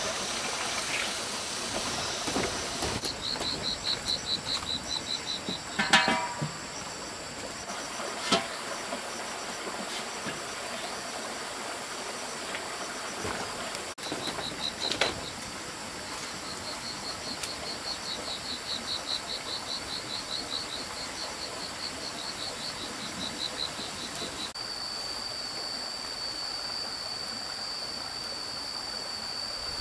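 Forest insects: a rapid, pulsing high-pitched chirping that starts and stops several times, then a steady high-pitched cicada drone from a few seconds before the end, all over a steady hiss. A few sharp knocks, the loudest about six seconds in.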